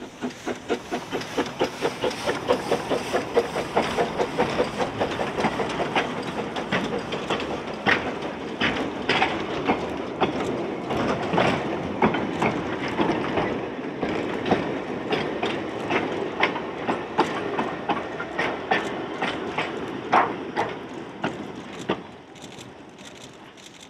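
Narrow-gauge train of small wagons rolling past, the wheels clicking and clattering over the rail joints in a quick irregular rhythm with occasional sharper knocks. It builds in the first couple of seconds and fades near the end as the last vehicle goes by.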